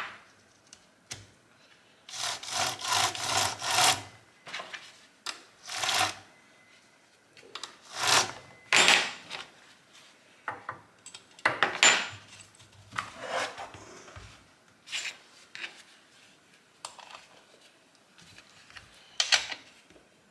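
Hand-tool rasping strokes on a hard material, in short separate passes, with a quick run of about half a dozen strokes a couple of seconds in.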